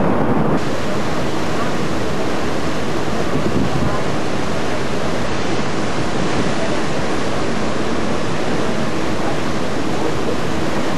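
Steady rushing of wind and sea water on a moving ferry, with wind on the microphone.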